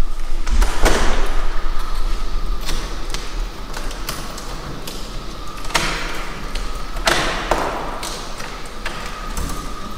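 A door being shut and locked: several separate thumps and clicks, spaced irregularly a second or more apart.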